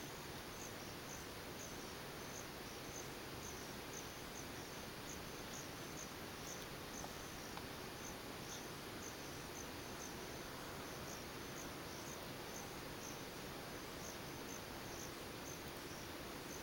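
Night insect chorus: short high-pitched chirps repeating evenly about twice a second, over a faint steady hiss.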